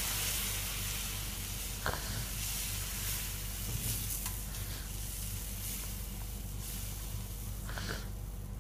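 Semolina, ghee and sugar sizzling in a hot kadai after water has been poured in, a steady hiss that slowly dies down, with a couple of light taps from the silicone spatula stirring.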